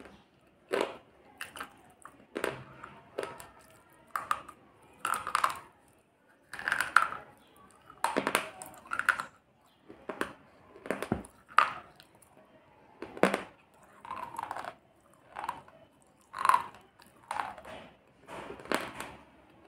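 Slate pencil being chewed with the mouth closed: a string of short, sharp, irregular crunches, about one a second.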